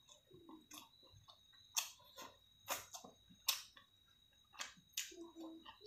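Close-up mouth sounds of someone eating rice and chicken with their fingers: chewing with a few sharp, wet smacking clicks about a second apart.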